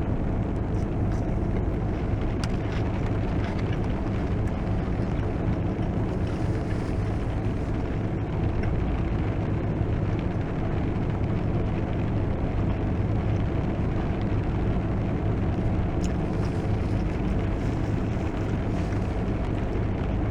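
Heavy rain pouring and drumming steadily on the car's roof and windshield, heard from inside the cabin, with a steady low hum underneath.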